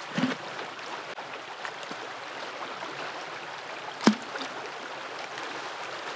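Steady rush of flowing river water, with a single sharp tap about four seconds in.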